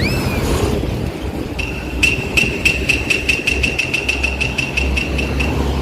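Heavy vehicle engine running with a steady low rumble. A quick rising whistle-like glide comes at the very start, and from about a second and a half in a rapid series of short high beeps, roughly five a second, sounds for about four seconds.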